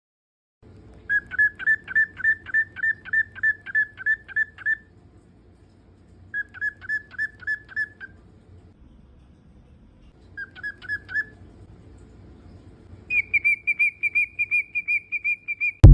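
A pet bird whistling one short note over and over, about three to four times a second, in several runs with pauses between; the last run is higher-pitched and slightly quicker. A loud sharp knock comes right at the end.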